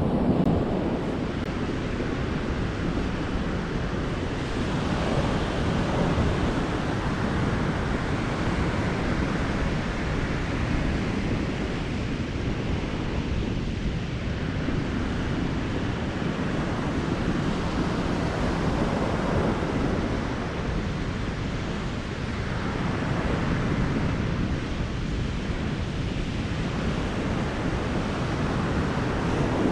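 Surf breaking on an ocean beach, a steady wash of waves that swells and eases every few seconds, with wind buffeting the microphone.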